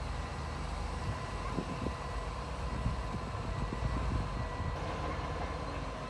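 Bulldozer running: a steady low engine rumble with a faint high whine, and irregular knocks and rattles through the middle.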